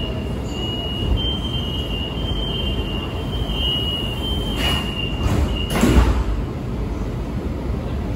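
Guangzhou Metro Line 22 train running at speed: a steady low rumble with a thin, high, wavering whine that fades in and out and stops about two-thirds of the way in. Near the end come a few short rushing surges, the loudest just after the whine stops.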